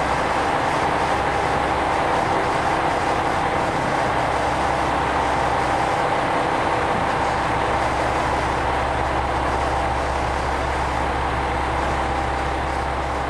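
JR Shikoku 2000 series diesel railcars at a station: a standing train's diesel engine idles with a steady hum and a whine. A second diesel train pulls in slowly and stops, adding a deeper engine rumble from about a third of the way in.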